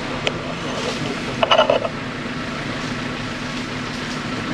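Safari jeep engine running steadily, a low even drone under a noisy bed. A brief louder sound breaks in about a second and a half in.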